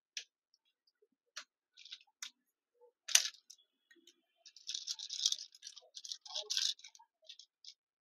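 A screwdriver and a hard disk's metal mounting bracket clicking and rattling as the bracket screws are worked out. Scattered sharp clicks, a loud one about three seconds in, then a run of quick metallic rattling and scraping.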